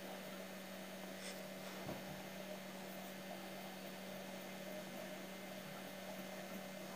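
Steady electrical hum over a constant hiss, with one faint tick about two seconds in.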